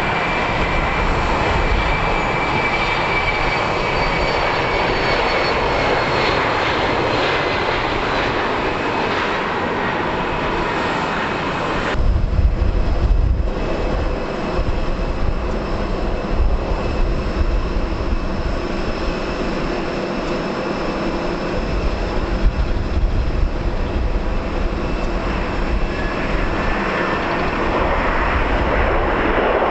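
Boeing 737-800 jet engines whining as the airliner taxis close by, with high tones drifting slowly down over a steady rush. About twelve seconds in the sound changes abruptly to more distant jet noise under an unsteady low rumble, with a faint rising whine near the end.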